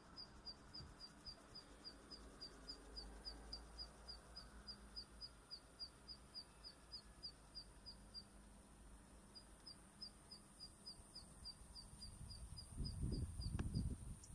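Zitting cisticola singing: a long run of sharp, high 'zit' notes repeated about four times a second, with a pause of about a second just past the middle. A low rumble comes in near the end.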